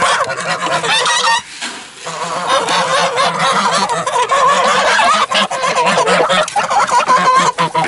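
A flock of domestic geese honking over one another without pause, squabbling as they crowd a trough of grain. The calls briefly drop away about a second and a half in.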